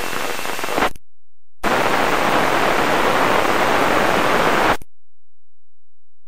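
Amateur radio receiver hissing with static and no voice on the channel. The hiss cuts to dead silence about a second in, comes back louder for about three seconds, and cuts off again near the end, like a squelch opening and closing on noise.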